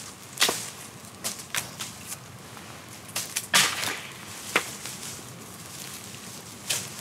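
A string of irregular sharp knocks and swishes, about nine in all at uneven gaps, the loudest about three and a half seconds in.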